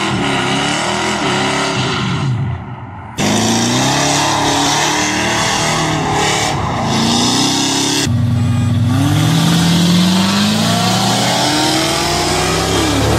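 V8 engines revving and accelerating hard, the engine note climbing and dropping again and again as the gears change. The sound cuts off abruptly twice, about 3 and 8 seconds in.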